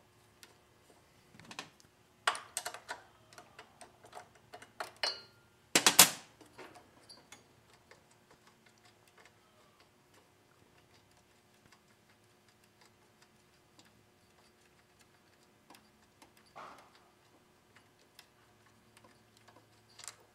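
Small metallic clicks and ticks as the bolts holding a lawn mower carburetor to its intake manifold are worked loose, with one sharp clank about six seconds in and a click at the very end. Long quiet stretches lie between them.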